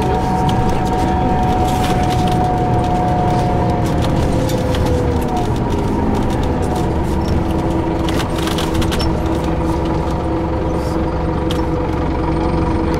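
Paris city bus heard from inside the cabin while under way: a steady drive whine made of several held tones over a low rumble, the tones dropping in pitch about four to five seconds in, with scattered rattles and clicks from the cabin.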